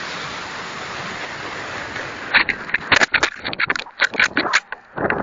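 Model rocket motor's rushing exhaust noise trailing off as the rocket climbs away. About two seconds in the sound changes abruptly to a run of irregular sharp knocks and rattles.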